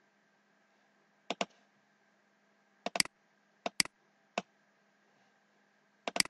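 Computer mouse and keyboard clicks: short sharp clicks, mostly in close pairs, coming irregularly about five or six times.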